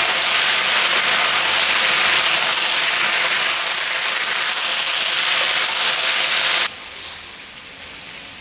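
Chicken pieces and red onion sizzling in a hot wok as they are stirred with a spatula: a loud, even hiss. It cuts off suddenly about two-thirds of the way through, leaving only a faint hiss.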